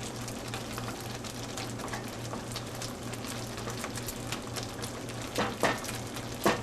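Refried beans sizzling and crackling in hot shortening in a deep frying pan over a high flame, their liquid cooking off. A few louder knocks come near the end.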